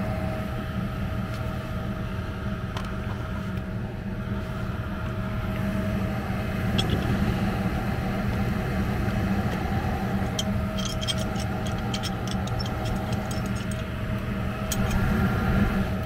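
Lennox gas furnace running with its newly replaced gas valve: a steady hum with a faint held tone. About ten seconds in comes a quick run of light metallic clinks as hand tools are handled on the floor.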